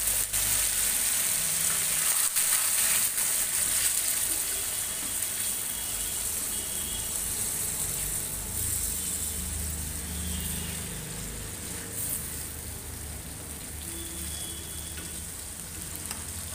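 Bamboo shoots sizzling in an iron kadai just after a splash of water, with a wooden spatula knocking and stirring in the pan. The sizzle is loudest in the first few seconds, then settles to a steady hiss.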